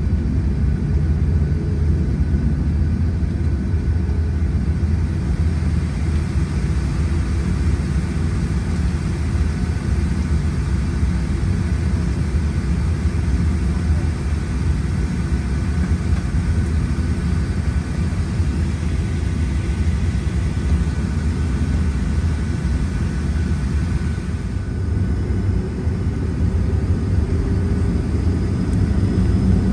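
Cabin noise of a Boeing 737-700 taxiing, heard from a window seat beside the wing: its CFM56-7B turbofan engines running at taxi power, a steady low rumble with a faint steady whine above it.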